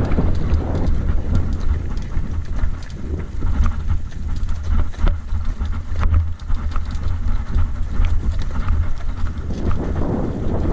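Wind buffeting the action camera's microphone with a heavy, fluctuating rumble, over the rattle and knocks of a mountain bike rolling downhill across a rocky dirt track.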